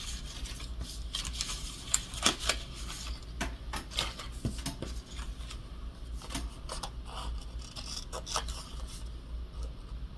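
Paper scraps being picked up and handled on a craft table: irregular light taps, clicks and rustling, over a steady low hum.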